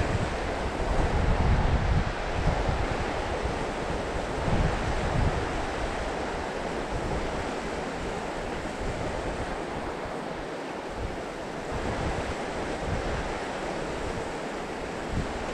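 Steady rush of a mountain stream's flowing water, with strong wind gusting on the microphone in low rumbles, heaviest about a second or two in.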